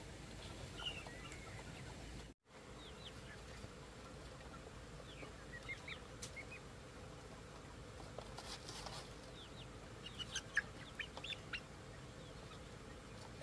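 Young chickens cheeping in short, high chirps, scattered and faint, with more frequent chirps in the last few seconds.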